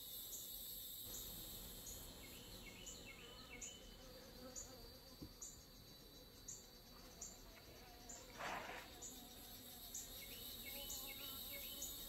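Faint buzzing of honeybees at an open hive, over steady high-pitched insect chirping that pulses regularly. A brief rustle about eight seconds in.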